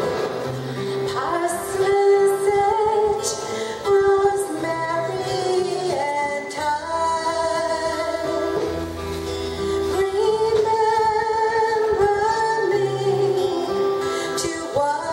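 A woman singing a song with her own strummed acoustic guitar accompaniment, sustaining and sliding between notes.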